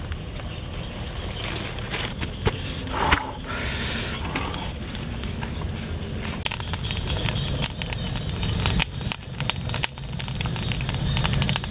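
Dry rustling and rapid clicking over a steady low rumble, with a short hiss about three seconds in; the clicking grows dense in the second half.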